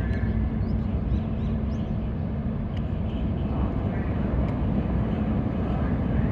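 Steady low rumble and hum of a Sado Kisen ferry's engines while the ship is under way, with a few faint high chirps about a second in.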